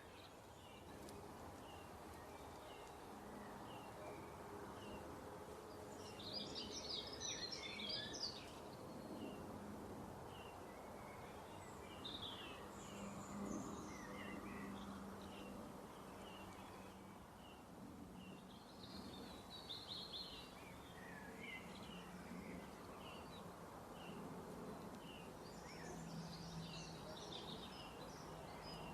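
Small birds chirping faintly, with short regular chirps and bursts of twittering several times, over a steady low hum.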